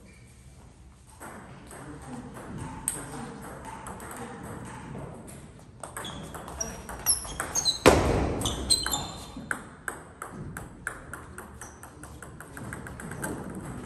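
Table tennis rally: a plastic ball clicking off paddles and the table, with quick hits from about six seconds in and one loud, sharp burst just before eight seconds. After it comes a run of smaller clicks that fade out, as of the ball bouncing away.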